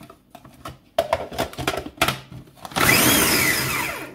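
Small electric food processor pulsed to chop canned chickpeas. A few plastic clicks and knocks come first as the lid is pressed on. About three seconds in, the motor runs briefly with a whine that rises and then falls, and it cuts off near the end. It is run in short bursts so the chickpeas stay chunky.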